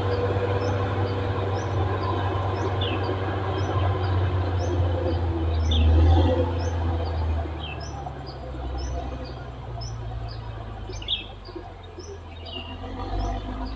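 Caterpillar D6R XL bulldozer's diesel engine running under load with a deep rumble, easing off about seven or eight seconds in. Faint high chirps repeat about twice a second over it.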